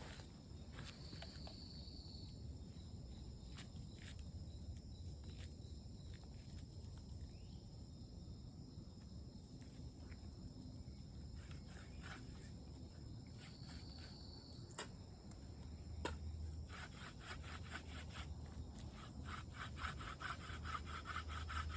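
Faint clicks and handling noise, then about 17 seconds in a hand-drill spindle starts twirling back and forth in its notch on the wooden hearth board. It makes a rapid, rhythmic rubbing scrape that grows louder as the board warms up. The spindle is river cane with a dog fennel tip.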